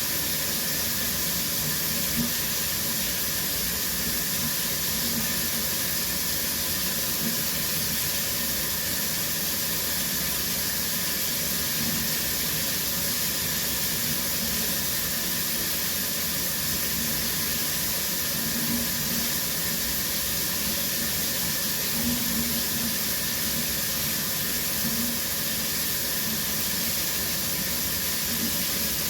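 Shower running steadily, water spraying from the showerhead and splashing down in a constant hiss.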